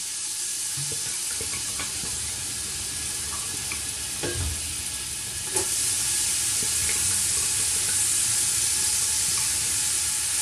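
Chopped celery sizzling in hot oil in a stainless steel stockpot as it is stirred, with a spatula knocking against the pot a couple of times. The sizzle grows a little louder about five and a half seconds in.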